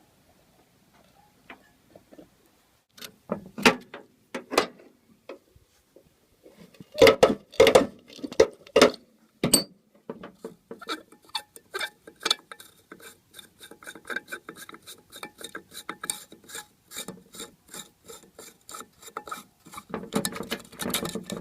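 A socket ratchet on a 19 mm socket unscrewing a jet pump's Venturi. There are scattered clicks at first, a few loud knocks around the middle, then a fast, even run of ratchet clicks as it backs out.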